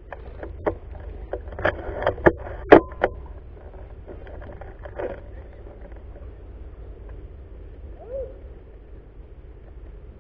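A quick series of sharp clicks and knocks close to the microphone, the loudest about two and a half seconds in, from handling of the rifle-mounted camera and gear. A steady low rumble follows, with one short rising-falling chirp near the end.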